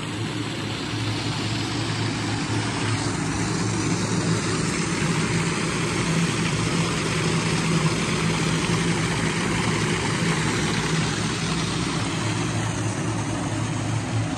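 Wet/dry shop vacuum running steadily, drawing the air out from behind a newly hung vinyl pool liner so the liner sets against the walls and floor.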